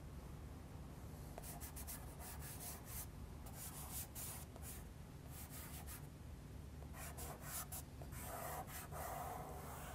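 Faint, irregular rubbing strokes on paper as charcoal is smoothed and smudged.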